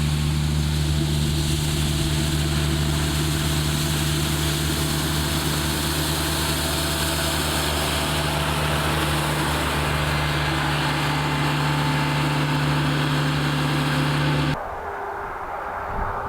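A vehicle engine running steadily with a constant low hum, which stops abruptly about a second and a half before the end, leaving quieter background noise.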